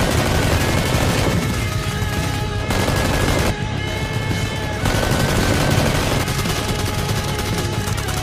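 Rapid automatic gunfire sound effects in repeated bursts, dubbed over a toy Nerf blaster, with background music playing underneath.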